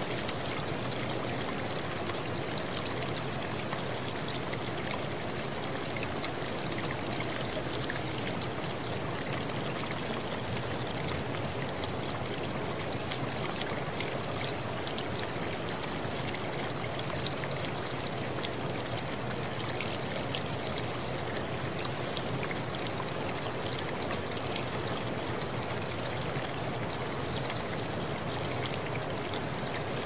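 Small waterfall and rocky stream running steadily, a constant rush of water dotted with many small splashes and drips.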